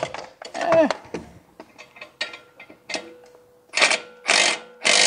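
Metal clicks of a wrench and cordless ratchet being fitted onto a pair of nuts on an exhaust stud. Near the end the cordless ratchet runs in three short bursts, tightening the top nut down against the bottom one to lock them together for pulling the stud.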